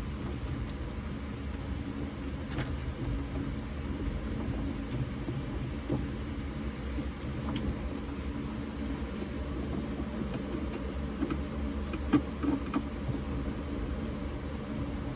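A steady low mechanical hum, with a few faint clicks and taps from a screwdriver and hands working among the wiring and cables under the console.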